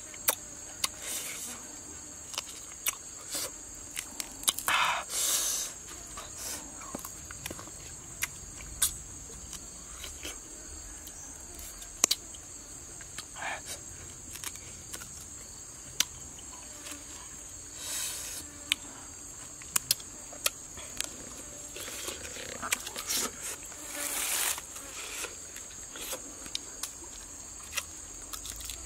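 Close-up eating sounds of roasted duck picked apart by hand and chewed: scattered sharp smacks and clicks, with a few short crunching bursts. Under them runs a steady high-pitched drone of insects.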